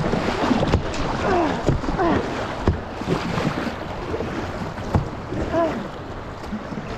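Rushing whitewater around a kayak on a river, a steady hiss of water with wind on the microphone, broken by a few sharp knocks, and brief faint voices calling in the distance.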